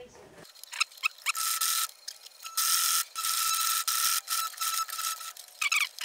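Pfaff electric sewing machine stitching canvas edge banding: its motor runs in a few stretches of a second or more with a steady high whine, with short clicking bursts before and after the runs.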